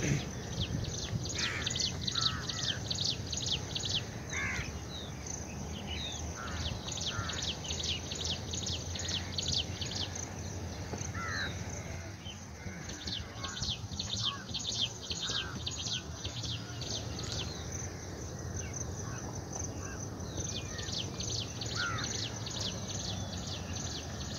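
Birds calling: crows cawing now and then over a fast run of high, thin chirps repeating several times a second. The chirps stop and start a few times.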